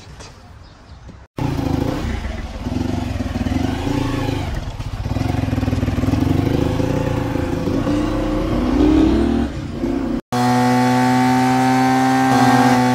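Motorcycle engine running on the move, heard over a few abrupt cuts, its pitch wavering with speed. In the last few seconds a steady, even drone holds one pitch.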